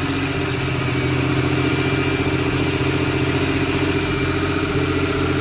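Suzuki Scrum's rear-mounted petrol engine running at a steady, fast idle. The idle speed is set high, which the mechanic suspects was done to stop the engine from stalling.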